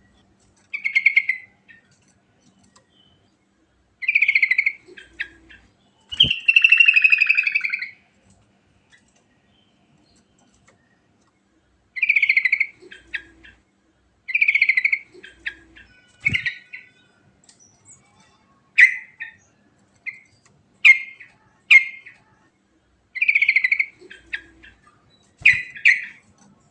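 Sooty-headed bulbul (trucukan) singing short warbled phrases of about half a second, one every second or two, with one longer, fuller phrase about six seconds in. A few low knocks come between the phrases.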